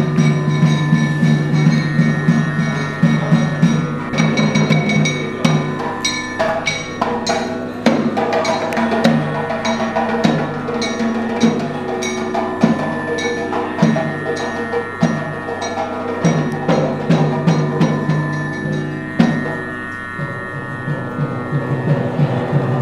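Temple ritual music: percussion struck in quick, uneven strokes over steady held tones and ringing, bell-like notes.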